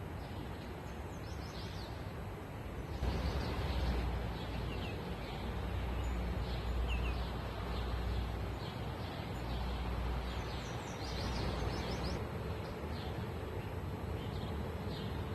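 Wind blowing over the microphone, gusting stronger about three seconds in, with scattered short bird chirps throughout and a small cluster of them near the end.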